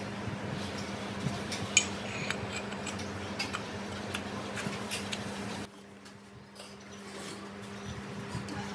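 Light metallic clinks and taps of a diesel engine's piston and cylinder liner being handled and fitted together, over a steady low hum; the sharpest clink comes about two seconds in.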